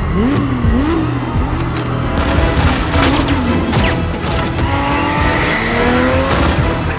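A film soundtrack mix: a Lykan HyperSport's engine revving up and down, then rising in pitch near the end, with a rapid burst of automatic gunfire starting about two seconds in, over film score music.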